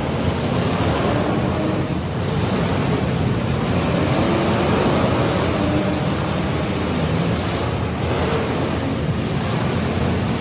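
Demolition derby cars' engines running and revving together in a dense, steady wash of noise, individual engines rising and falling in pitch within it.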